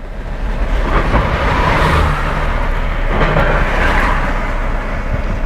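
A car driving: steady tyre and road noise over a low, even rumble.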